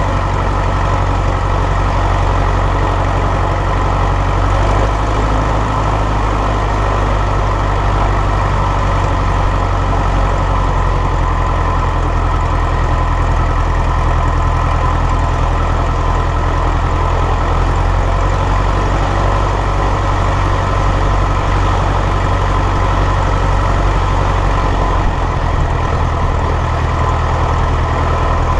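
Light aircraft's piston engine and propeller running steadily at low idle as the plane taxis over grass.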